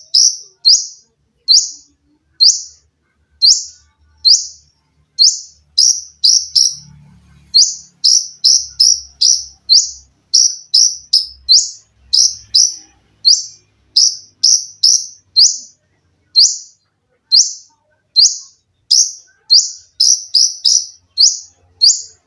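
Olive-backed sunbird (konin) calling in a fast, tight run of short, shrill, high notes, about one to two a second, each note sharp and brief.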